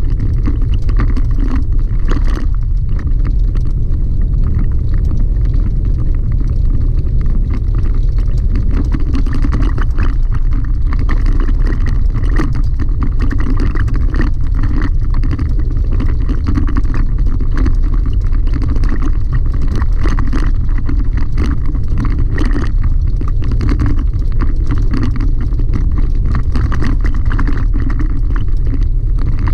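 Chevrolet Colorado ZR2 pickup driving on a gravel dirt road, heard from inside the cab: a steady low rumble of tyres and engine, with many small clicks and rattles from the gravel and the truck.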